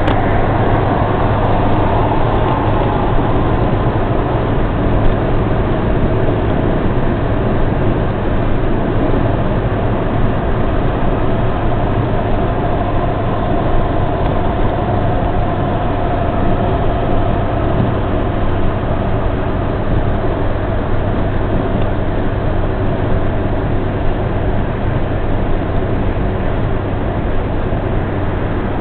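Steady, loud road-vehicle noise with a constant low hum. A faint whine drops slightly in pitch over the first few seconds, then holds.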